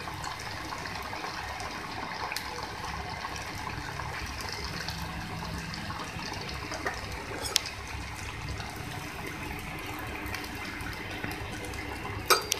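A samosa deep-frying in hot oil in a steel pan: steady sizzling and bubbling. A sharp tick comes a little past the middle, and another near the end.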